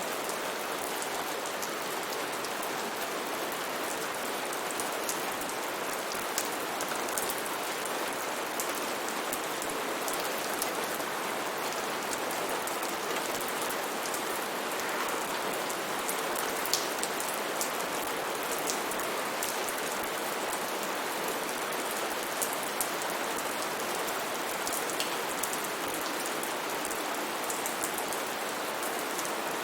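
Steady rain falling, a continuous hiss with many small drops pattering and ticking on a surface.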